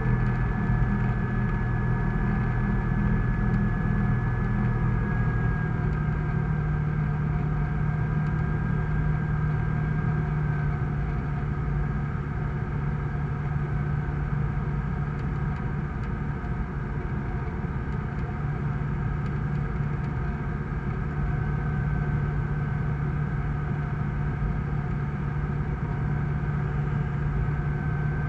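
Sling 2 light aircraft's Rotax 912 flat-four engine and propeller running steadily in flight, heard from inside the cockpit. The engine note drops slightly about five seconds in, then holds steady.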